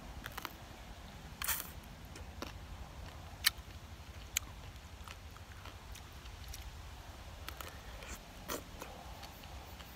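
Crisp marian plum (maprang) fruit being bitten into and chewed close to the microphone: a scattering of short sharp crunches, the loudest about three and a half seconds in, with another bite near the end.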